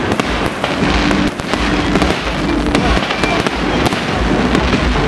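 Fireworks display going off: a dense, continuous barrage of booms and crackling bangs with no let-up.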